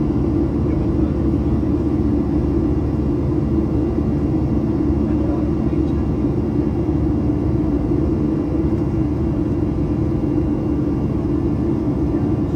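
Jet airliner engines running steadily, heard from inside the cabin as a constant low drone with a strong hum and deep rumble.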